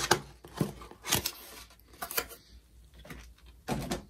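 Short, separate rustles and knocks of packaging being handled on a table: about five in all, the sharpest near the start.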